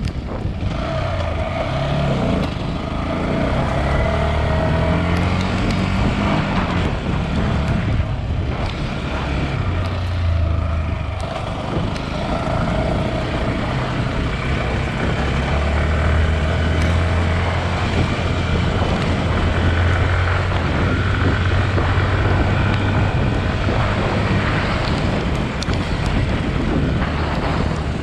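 Yamaha WR155R's single-cylinder engine running as the motorcycle is ridden off-road, its pitch rising and falling with the throttle.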